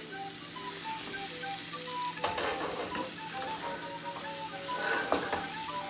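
Marinated chicken pieces sizzling in a hot non-stick frying pan of onion-tomato masala, with a spatula scraping and stirring a couple of times. Soft background music plays under it.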